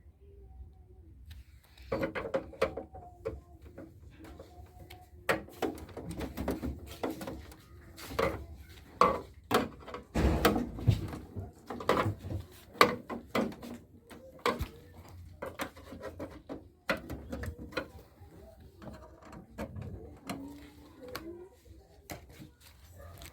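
Irregular clicks, taps and knocks of parts and tools being handled during work on a CRT television, with low cooing that fits pigeons in the background.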